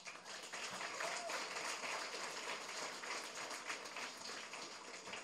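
Audience applauding, starting suddenly as the poem ends and tapering off near the end.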